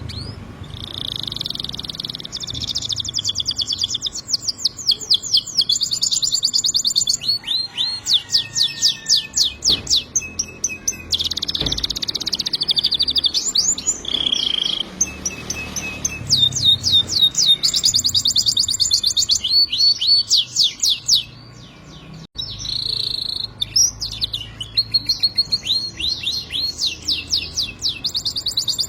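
Domestic canary singing a long, continuous song of rapid trills and fast repeated chirps, with a brief pause a little after two-thirds through.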